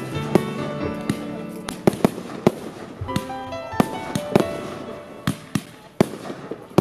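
Fireworks display: aerial shells bursting in a quick, irregular run of sharp bangs and crackles, with music of held notes playing underneath.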